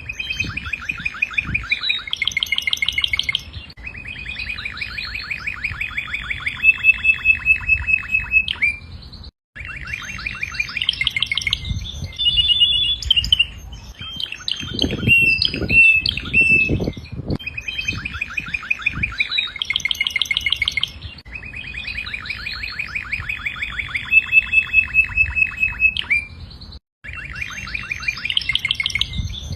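Domestic canary singing a long, continuous song of rapid trills, rolls and short whistled notes, phrase after phrase. The sound cuts out briefly twice, and a few low knocks come about halfway through.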